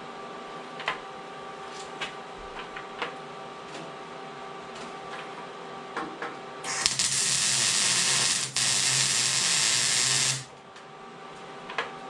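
MIG welding arc sizzling steadily for about three and a half seconds, with a brief break partway through, as a tack weld is laid on steel tubing. Before the arc strikes there are a few sharp metal clicks over a steady hum.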